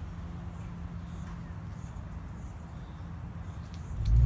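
Quiet outdoor ambience: a low, uneven rumble with faint high chirps. About four seconds in, a much louder low engine and road rumble from inside the moving 1972 Chevelle cuts in.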